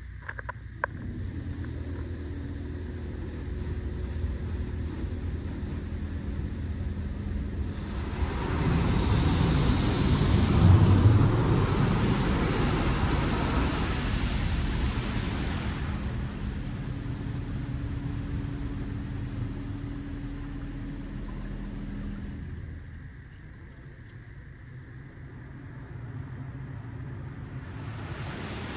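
Touchless automatic car wash machinery running: a steady motor and pump hum, with a louder rushing hiss of spray or blowers for several seconds about a third of the way in. The hum stops about three-quarters of the way through.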